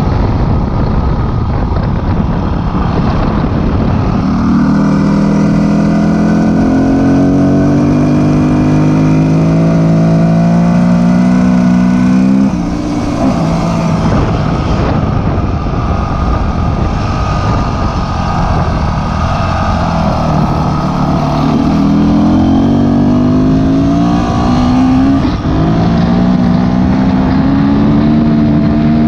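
Dirt bike engine running under throttle, its pitch climbing steadily and then falling back sharply, once about halfway through and again near the end, before climbing again. A heavy low wind rumble on the microphone runs under it.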